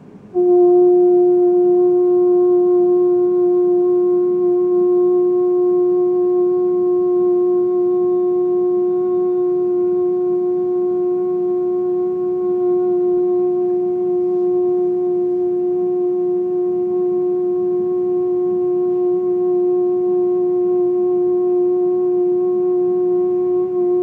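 A man singing one long note for as long as his breath lasts, starting just after the beginning and held steady in pitch without a break.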